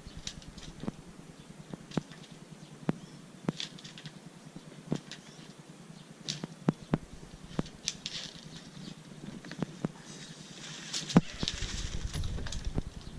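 Scattered, irregular clicks and knocks of a Hobie 16 catamaran's mast and rigging as the mast is raised on its hinge. A louder knock comes near the end, with a rising rush of noise.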